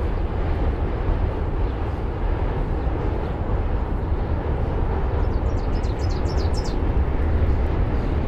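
Steady low rumble of distant city traffic, with a quick run of high bird chirps about five to seven seconds in.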